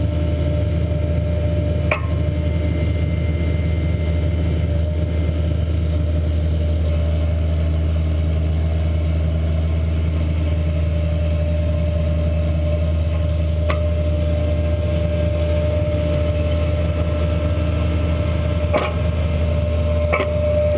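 Tractor engine running steadily under load as it pulls a tile plow through the soil, a constant low drone with a steady hum, broken by a few short sharp knocks.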